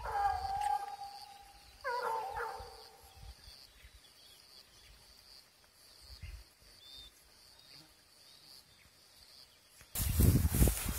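A hunting hound baying: a drawn-out howling bay at the start and another about two seconds in, then quiet. Near the end a loud rustling rush of brush and movement noise takes over.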